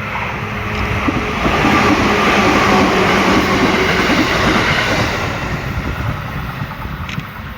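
JR East 211 series electric train passing close by, its wheels clacking over the rail joints. The sound swells to a peak about two to three seconds in and then fades as the train moves away.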